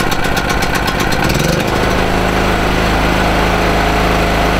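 Wolf Power WP2800LR generator's 6.5 hp four-stroke petrol engine running just after being pull-started on choke. About a second and a half in, its pitch rises briefly, then it settles into a steady, even hum.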